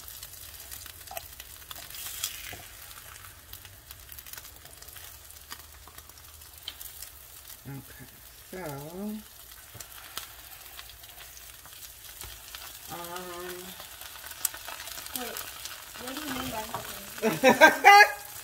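Birria tacos frying in oil on an electric griddle: a steady sizzle, with occasional scrapes and taps of a plastic spatula. A voice is heard briefly a few times, loudest near the end.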